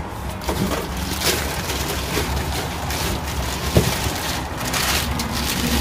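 Plastic wrapping crinkling and foam packing rubbing and creaking as a plastic-wrapped taillight is handled and pulled out of its box, with one sharper click just before four seconds in.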